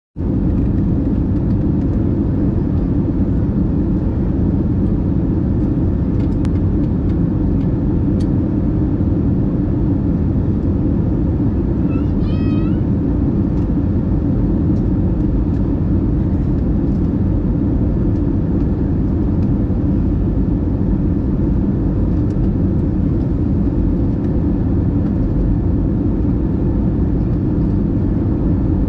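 Steady drone of an airliner's turbofan engines and airflow heard inside the cabin near the wing, on descent. A short high wavering sound comes through briefly near the middle.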